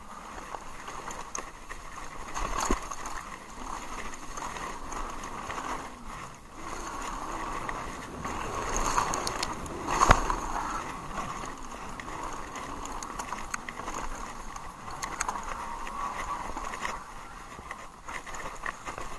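Haibike Sduro electric mountain bike descending a dirt and leaf trail at speed: steady tyre rolling noise with the frame and components rattling over bumps. Sharp knocks from hits on roots or rocks, the loudest about ten seconds in.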